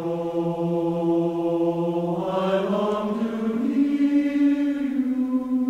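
Voices singing together in slow, long-held notes, the pitch stepping up about two to four seconds in.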